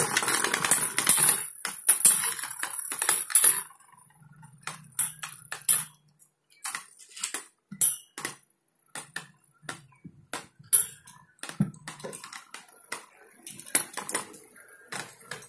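Two Beyblade Metal spinning tops battling in a plastic basin just after launch. For the first three to four seconds there is a dense scraping rattle as they spin against the plastic. After that come sharp, scattered clacks as the tops strike each other and the basin wall.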